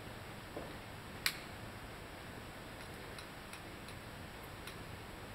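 Small metallic clicks from a black powder pistol being handled: one sharp click about a second in, then a scattering of about six faint, light ticks over the next few seconds.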